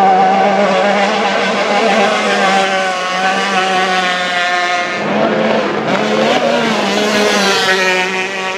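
Racing outboard engines on tunnel-hull powerboats running at high revs at racing speed. The engine note falls slightly in pitch, then changes about five seconds in as a different engine comes to the fore.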